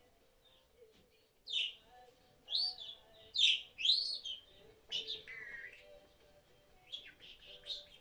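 A pet budgerigar chirping and warbling: a run of short whistled calls that rise and fall in pitch, starting about a second and a half in.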